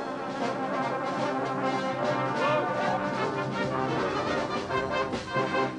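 Brass band music: several brass instruments playing sustained chords together.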